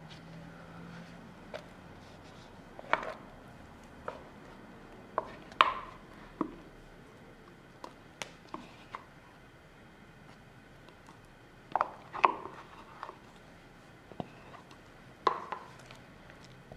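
Spatula scraping mascarpone and knocking against a glass mixing bowl: irregular taps and knocks, a few of the louder ones followed by a brief ring.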